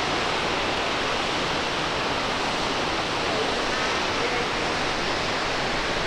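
Fukuroda Falls waterfall, a steady roar of falling water.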